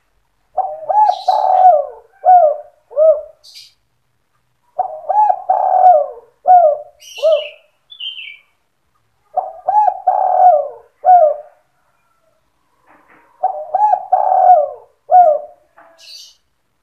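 Spotted dove (tekukur) cooing in four phrases, each a quick run of arching coo notes followed by two short separate 'kuk' notes: the 'sandung kuk 2' song style. Faint high chirps from a small bird fall between the phrases.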